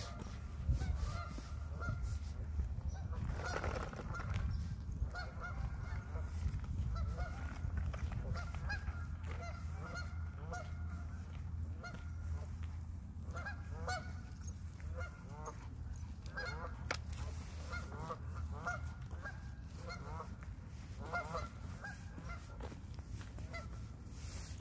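A flock of Canada geese honking, many short calls overlapping and repeating throughout, over a steady low rumble.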